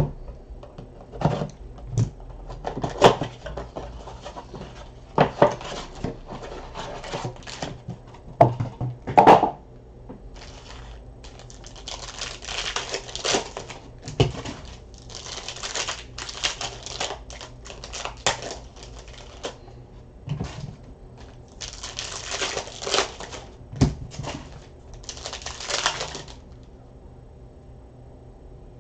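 Trading cards and packs being handled at a table: scattered taps and clicks in the first ten seconds or so, then longer stretches of rustling as cards and wrappers slide against each other.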